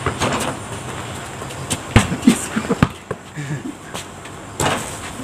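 A basketball bouncing on a concrete driveway court: three sharp, separate bounces, with brief shouts from the players and a low background hum that dies away after about a second and a half.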